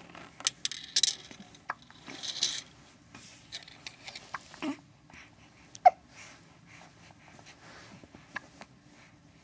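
Baby hiccupping: one sharp, loud hiccup about six seconds in, with a few fainter short sounds scattered around it. Brief rustling noises come about one and two and a half seconds in.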